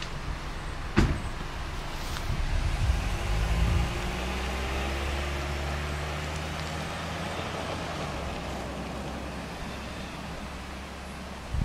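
An SUV pulling away and driving off down a paved road. Its engine swells as it sets off, then runs steadily and slowly fades as it moves away. A single sharp knock about a second in.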